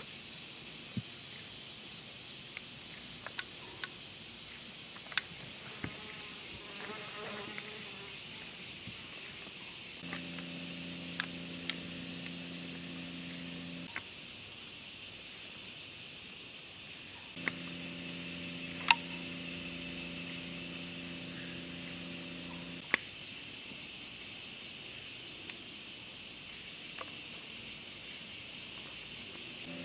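Steady high-pitched insect chorus with scattered sharp clicks. A low machine hum comes on twice for a few seconds, about ten seconds in and again past halfway.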